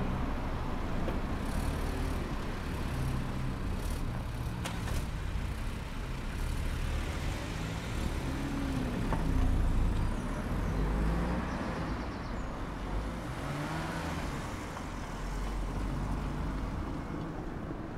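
Road traffic: cars and a van driving past close by, engine hum and tyre noise rising and falling as each one passes, the loudest pass about halfway through.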